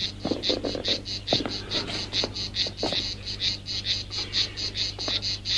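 Crickets chirping steadily, about five high chirps a second, over a low steady hum, with a few soft knocks in between.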